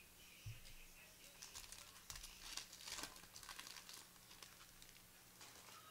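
A trading-card pack's foil wrapper being torn open and crinkled: a dense run of faint crackles for two or three seconds, with a soft thump just before it.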